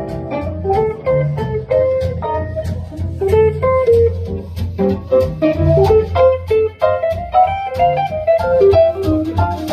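Guitar-led jazz played from a vinyl record on a Thorens Reference turntable over loudspeakers: a steady run of plucked notes over a low bass line.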